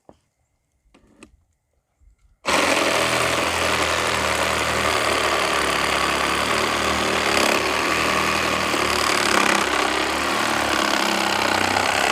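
Meterk 20V cordless reciprocating saw cutting through a piece of softer wood. It starts suddenly about two and a half seconds in and runs steadily and loudly, with a low hum under the blade noise.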